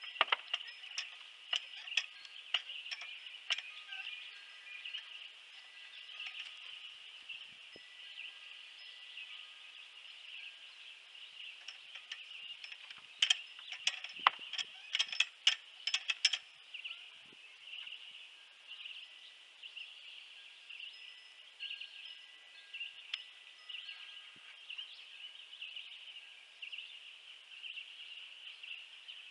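Scattered metallic clinks and knocks from hand work on metal shelf brackets and a floor jack, with a loud cluster of them about 13 to 16 seconds in, over a steady high-pitched hiss.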